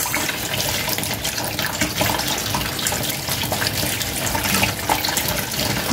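Kitchen tap running steadily into the sink as tomatoes in a sieve are rinsed under it.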